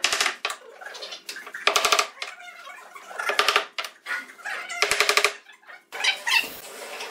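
Repeated bursts of rapid knocking on wood, about five in all, spaced roughly a second and a half apart, as turned pine table legs are driven into a round table frame.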